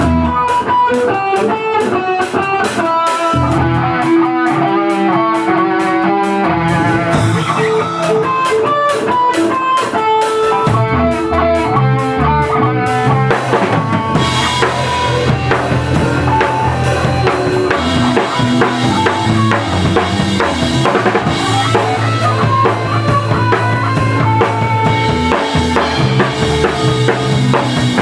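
A live rock band playing an instrumental passage: electric guitar lines over drum kit, with bass guitar coming in about three and a half seconds in and the band filling out about halfway through.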